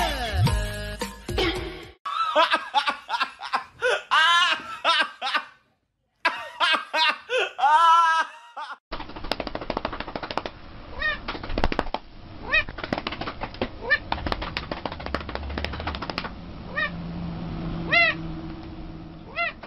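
Music ends, then a run of high rising-and-falling cries. After that a calico cat gives short meows every second or two while a hand pats its back in quick slaps.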